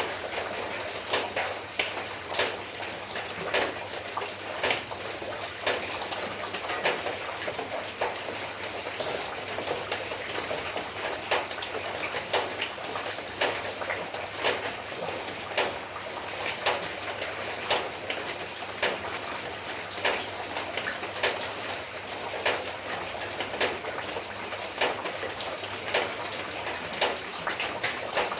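Rain falling steadily, a constant hiss of water, with sharp drips landing about one and a half times a second.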